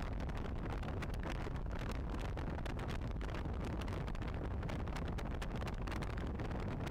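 Steady road and wind noise of a car driving at speed, a constant low rumble with a fine crackle over it.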